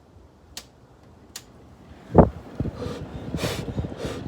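Two light clicks, then a loud thump about two seconds in. After it comes irregular wind buffeting on the microphone and a short, sharp breath or sniff.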